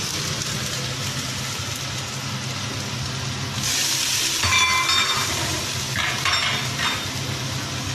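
Chicken pieces and onions sizzling in oil in a karahi as they are stirred with a silicone spatula. About three and a half seconds in, a louder, brighter sizzle of chopped tomatoes frying in oil takes over; the tomatoes are cooked soft.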